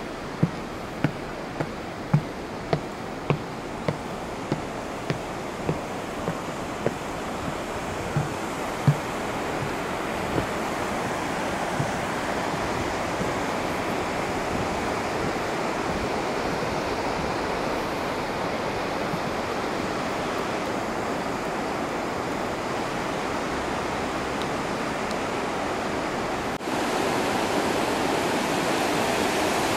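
Footsteps on wet wooden bridge steps and planks, an even walking pace of nearly two steps a second, over the steady rush of flowing river water. The footsteps stop about 12 seconds in, and the water grows louder, jumping up suddenly near the end.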